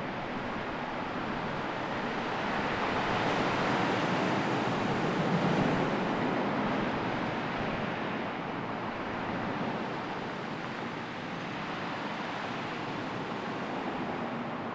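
Sea surf mixed with wind, a rushing noise that swells to a peak about five seconds in and then eases.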